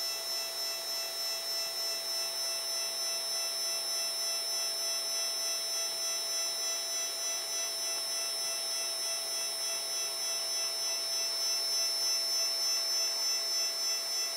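Z-axis stepper motors of a Protomaker 3D printer turning the threaded rods to drive the carriage up, a steady whine made of several high tones.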